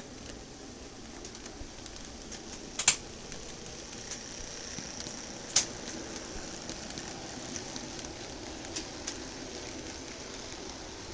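HO scale model train running on the layout: a steady low hum with light ticking, broken by two sharp clicks about three seconds apart.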